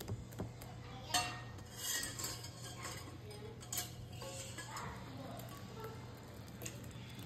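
Wire whisk beating waffle batter in a ceramic bowl, with irregular scrapes and light clinks of the whisk against the bowl.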